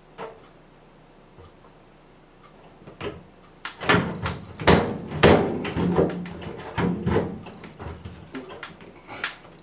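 Knocking, clattering and rattling of a kitchen ventilation fan's parts being worked loose by hand, starting about three seconds in.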